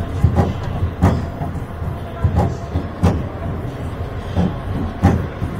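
Steel family roller coaster (Chance Rides) climbing its lift hill: a steady rumble from the lift, with the train's anti-rollback clacking over the ratchet about once every two-thirds of a second.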